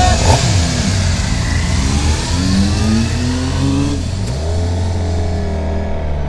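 Suzuki GSX-R 750 inline-four sport bike engine pulling away, revs rising and then dropping sharply at a gear change about four seconds in before settling, with wind noise over the helmet camera.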